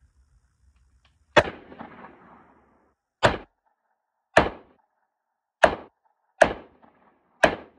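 Six single shots from a Model 206 snub-nosed .38 Special revolver, fired one at a time about a second apart, the first followed by a longer tail.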